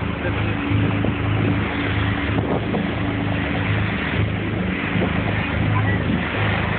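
Fishing boat's engine running steadily under way, a low pulsing drone, with water rushing along the hull and wind buffeting the microphone.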